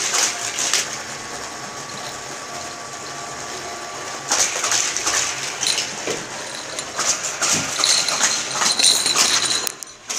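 Small jingle bells on a baby's plastic ring toy jingling in uneven bursts as the toy is shaken and mouthed, about a second at the start and again a little past the middle and near the end.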